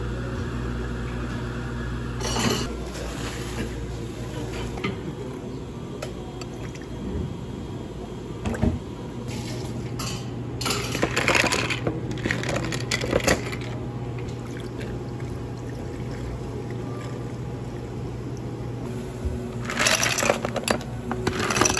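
Drinks being made at a café counter: liquid poured into a glass, over a steady low hum. Near the end, ice cubes clatter into glass tumblers.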